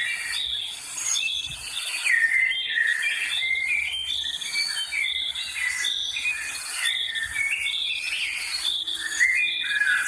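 A chorus of songbirds, many short high chirps and whistled phrases overlapping without pause.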